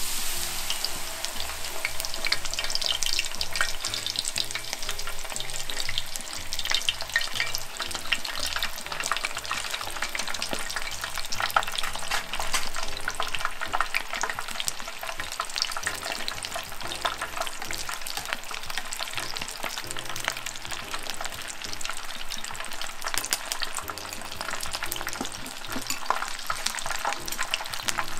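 Battered tempura deep-frying in hot oil: a dense, steady sizzle packed with fine crackles as the batter gives off its moisture, most intense in the first several seconds.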